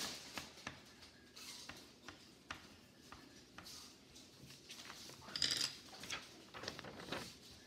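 Hands handling slime and its containers at a table: scattered light clicks and taps, with a louder rustling, crackling burst about five and a half seconds in as the slime is stretched.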